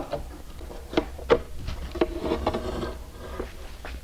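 A few light clicks and knocks as a metal window-regulator bracket is handled and set against the edge of the door glass, over a low steady hum.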